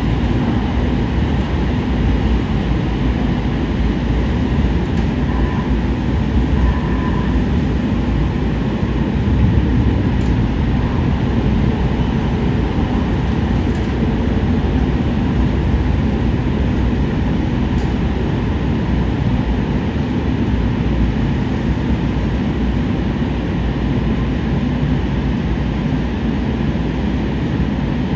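Metro E Line light-rail train running, heard from inside the car: a steady low rumble of wheels on rails.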